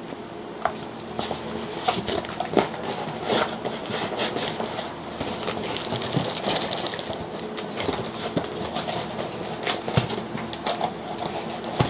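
Cardboard product boxes being handled and pulled out of a cardboard shipping box: irregular rustling, scraping and light knocks of cardboard on cardboard.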